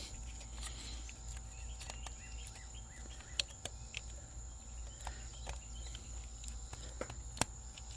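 Steady high chirring of insects with scattered small clicks and taps from handling the engine's glow plug connectors and wiring, a few of them sharper.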